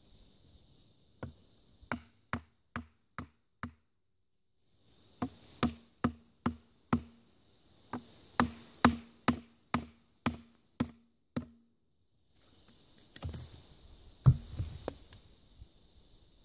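A wooden baton beating the spine of a Gerber Bear Grylls Ultimate fixed-blade knife to drive it through a branch on a stump: sharp wooden knocks about two a second in two runs with a short pause between them, then a few louder, scrappier hits near the end.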